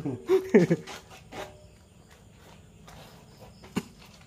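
Crickets chirring faintly and steadily in the background, after a brief bit of voices at the start, with a single sharp knock near the end.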